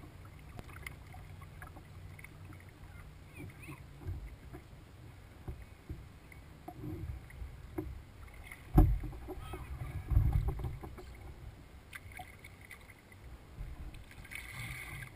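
Water lapping and splashing against a kayak's hull as it moves across a lake, over a low rumble. There are scattered small clicks, a loud knock about nine seconds in, then a duller thump a second or so later.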